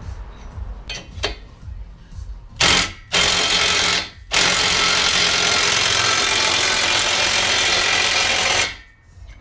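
Impact wrench driving the bolt of a bearing puller on a differential, run in three loud bursts: a brief one, one of about a second, then a long run of about four seconds that stops abruptly. A couple of light clicks come first.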